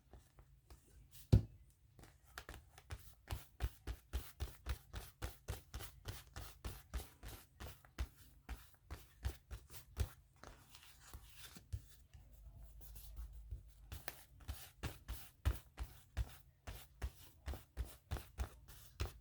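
Scissors snipping paper, quick repeated cuts about three a second, with one sharp knock about a second and a half in.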